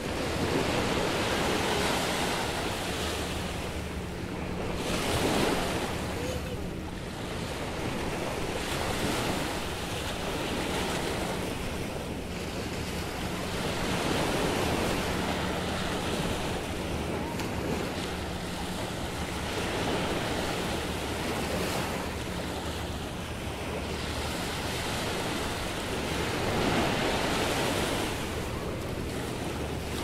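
Ocean surf breaking on a beach of sand and pebbles, the wash swelling and easing every several seconds, with wind buffeting the microphone. A faint steady low hum runs underneath.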